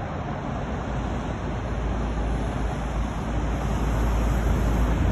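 Steady city road-traffic noise with a deep rumble from wind buffeting the microphone, slowly getting louder.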